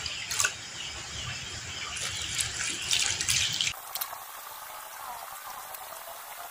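Hands working damp rice bran in a plastic tub, giving a rough rustling, scrunching sound of moist grains being turned and squeezed. About four seconds in, the sound drops abruptly to a faint hiss.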